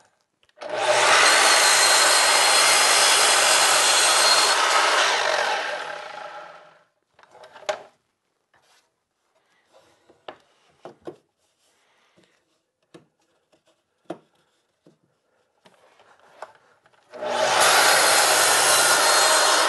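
Sliding miter saw cutting a stack of wooden cross-member boards to length: the saw starts, cuts for about four seconds, then winds down. Light knocks and clatter follow as the boards are slid along the saw table against the stop block, and a second cut starts near the end.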